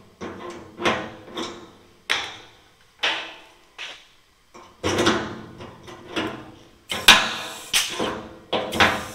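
Pneumatic pop-rivet gun setting 3/16-inch rivets through a latch and aluminum diamond plate: a run of sharp snaps, each dying off quickly, roughly one a second, with several close together near the end.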